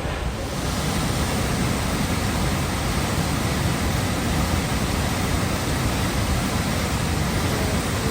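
Waterfall on the McCloud River, a steady, even rush of falling water.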